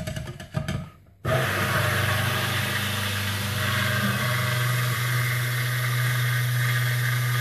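Stick blender switching on about a second in and running steadily with a low hum, blending cold-process soap oils and lye solution toward emulsion.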